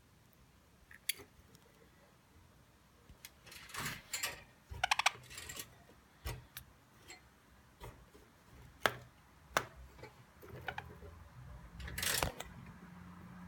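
Light, irregular clicks and taps from a budgerigar's beak pecking, with short scratchy rustles about four seconds in and again near the end.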